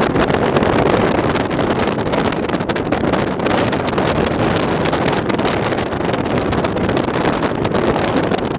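Storm-force wind blowing onto the microphone: a loud, continuous rush of wind noise that never lets up.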